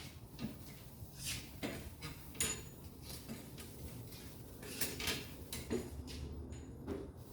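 Scattered light clinks and knocks of hard objects being handled, irregular and a few seconds apart, some with a brief metallic ring.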